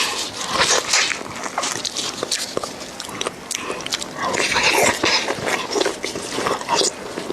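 Close-up mouth sounds of eating beef bone marrow: wet sucking and chewing with many small clicks and smacks, and one longer, louder suck about four seconds in.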